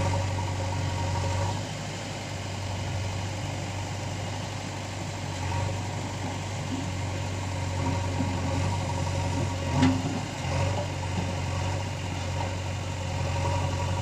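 JCB 3DX backhoe loader's diesel engine running steadily as the machine works, easing off about a second and a half in. There is a single sharp knock about two-thirds of the way through.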